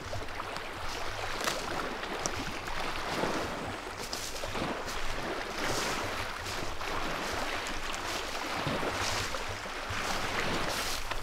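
Small waves splashing and lapping against a rocky shoreline, rising and falling in irregular surges, with wind rumbling on the microphone.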